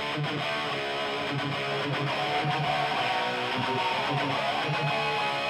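Guitar intro opening a progressive metal song: picked and strummed guitar notes without drums, a few of them sliding in pitch in the second half.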